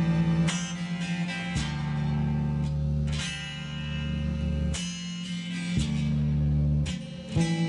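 Rock band playing live, an instrumental passage without vocals: guitar chords struck about once every second or two over held bass notes that change pitch with each chord.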